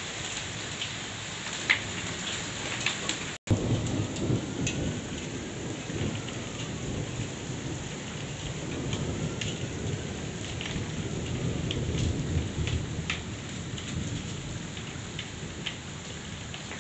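Heavy rain falling steadily, with sharp drops striking close by. About three and a half seconds in, after a brief dropout, a long low roll of thunder rumbles in, swells, and fades near the end.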